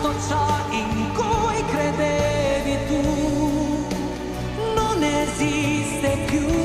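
A woman singing a ballad with vibrato over orchestral accompaniment, with an echo effect added to the voice.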